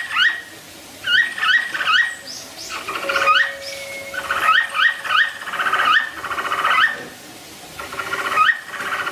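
An animal calling in runs of short, high, rising squeaks, several in quick succession in each run, with brief pauses between the runs.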